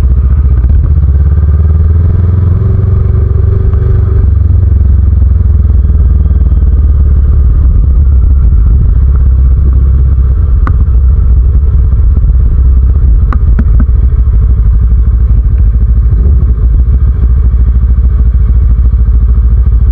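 Motorcycle engine running steadily under a deep rumble of riding noise, heard from the bike itself. About a second in, the engine note rises for a few seconds as it accelerates, and two short clicks come near the middle.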